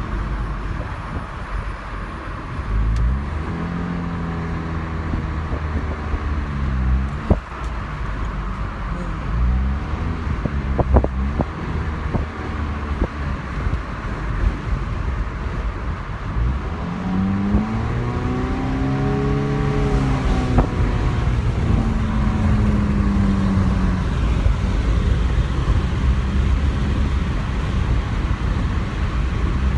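Car driving at road speed, heard from inside the cabin: steady road and wind noise under an engine note that rises and falls several times. A few short clicks or knocks come through about a third of the way in.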